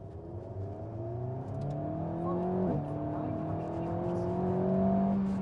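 The Alpine A110 S's 1.8-litre turbocharged four-cylinder engine accelerating, heard from inside the cabin. Its pitch climbs, drops abruptly as the automatic gearbox shifts up about two and a half seconds in, then climbs again through the next gear.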